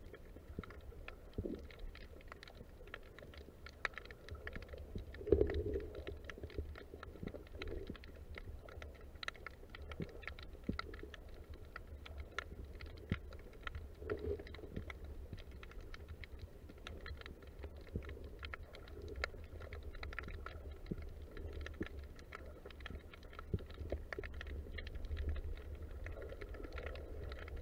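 Underwater ambience heard through a camera housing: a constant scatter of sharp clicks and crackles over a low steady rumble, with a few muffled bumps, the loudest about five seconds in.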